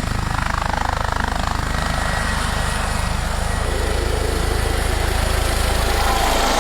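Airbus H145M helicopter running, its rotor beating in a fast, even pulse over the turbine noise. It grows a little louder in the second half.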